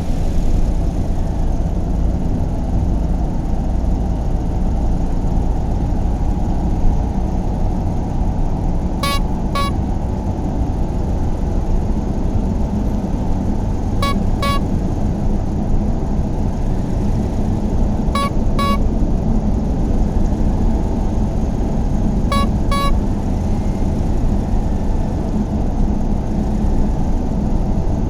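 A steady low rumble, with a short, high double horn beep sounding four times, a few seconds apart.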